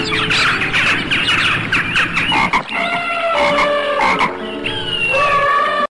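A chorus of many overlapping animal calls: a dense chatter of short calls that gives way, about halfway through, to longer calls each held on one pitch.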